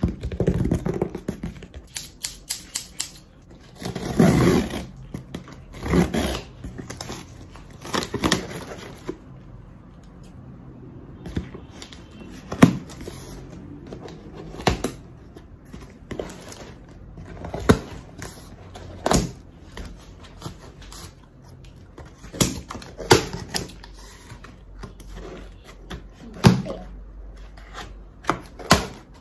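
Cardboard shipping box being opened: scissors cutting the packing tape and cardboard, with irregular sharp clicks, knocks and scraping as the box is handled and its flaps pulled open.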